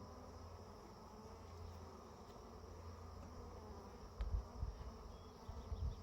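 Honeybees buzzing steadily around an open hive during an inspection, with a few low thumps in the second half.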